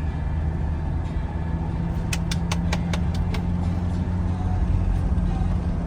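Steady low drone of the 1983 Mercedes-Benz 300CD's 3.0-litre turbodiesel inline-five, heard from inside the cabin. About two seconds in comes a quick run of about six light clicks.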